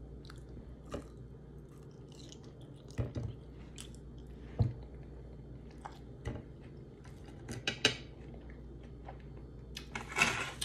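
A person eating quietly: chewing, with scattered sharp clinks and taps of a metal fork against a plate. A short hiss comes near the end.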